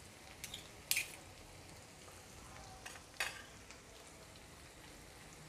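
Kadai chicken gently sizzling in the pan, faint and steady, with a few short sharp clinks of a spoon against the kadai, the clearest about a second in and just past three seconds.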